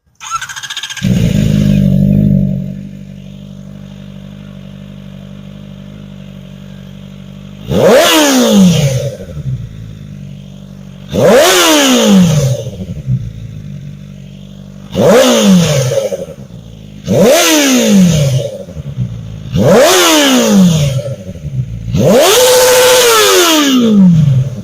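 Kawasaki Ninja ZX-4RR inline-four fitted with a Yoshimura AT2 slip-on exhaust, started about a second in, settling from a high idle to a steady idle. Then six sharp throttle blips, each revving up quickly and falling back to idle; the last is held for about two seconds.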